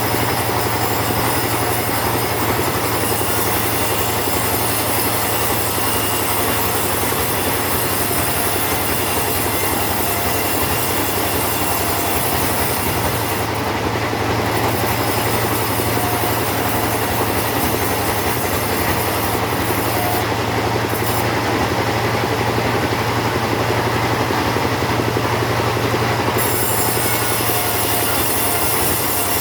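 Chainsaw running steadily under load, cutting through teak wood.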